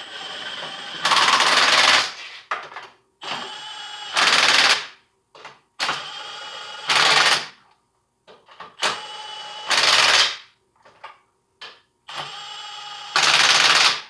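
Small impact wrench on its lowest setting running five lug nuts onto a car wheel, one after another about every three seconds. Each nut spins on briefly, then the tool hammers for about a second as the nut seats.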